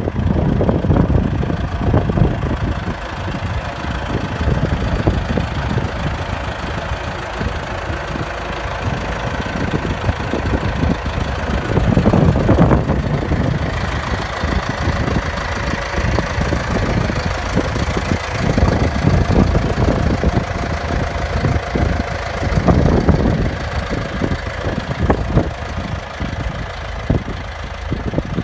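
John Deere 5720 tractor's diesel engine running steadily, swelling louder briefly about twelve seconds in and again about twenty-three seconds in.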